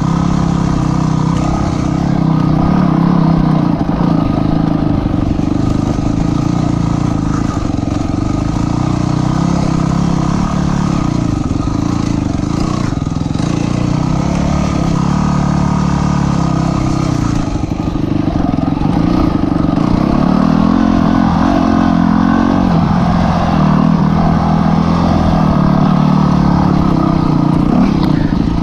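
Dirt bike engine running while riding a trail, heard close up from the rider's position, its note rising and falling as the throttle is worked.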